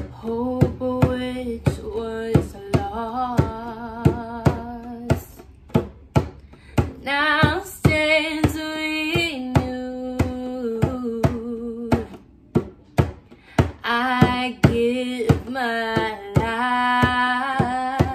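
A woman singing a slow worship song in held notes, accompanying herself on a djembe struck by hand in a steady beat of about two strokes a second. The drum carries on alone in two short gaps between sung lines.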